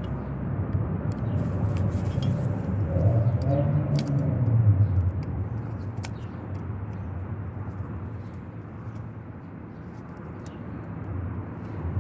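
Low rumble of a passing motor vehicle, swelling about three to five seconds in and then fading to a steady background drone, with a few faint clicks.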